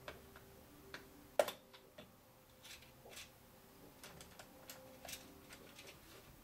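Faint scattered clicks and taps of hands handling a liquid cooler's pump block and rubber tubing inside a computer case, with one sharper knock about one and a half seconds in.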